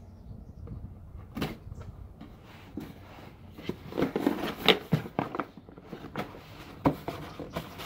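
A cardboard shipping box being opened by hand: scattered knocks, scrapes and rustles of the cardboard flaps, with a few sharper clicks.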